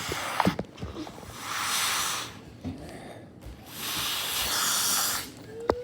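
A child blowing out hard, a hiss of rushing breath: a short puff at the start, then two long blows of about a second and a half each.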